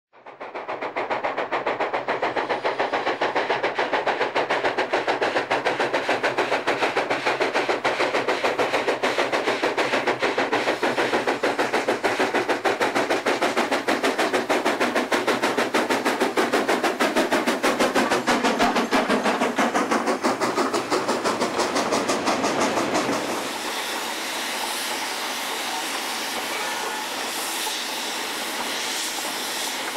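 Steam locomotive working hard, its exhaust beating rapidly and evenly, fading in over the first second. About 23 seconds in the beats fall away and the sound drops to a quieter, steadier train rumble and hiss.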